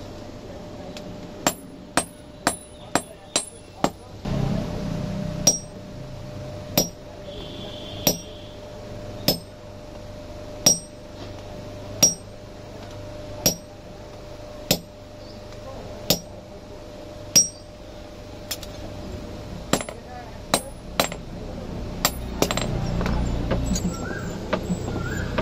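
Blacksmith's hand hammer striking red-hot iron held in tongs on a steel anvil, sharp ringing blows: a quick run of lighter strikes near the start, then single blows about every second and a half, then another quicker run near the end.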